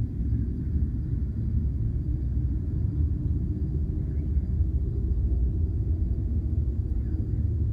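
A steady low rumbling drone that rises and falls a little in strength; its source is unidentified, heard overhead and not taken for an airplane.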